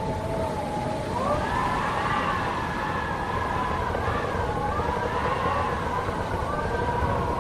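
Howling wind: several wavering whistling tones over a steady low rumble, the howl stepping up in pitch about a second in.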